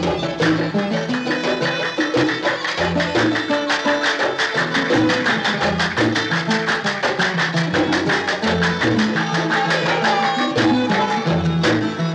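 Kuwaiti sawt music with quick, steady hand-drum strokes under a melody.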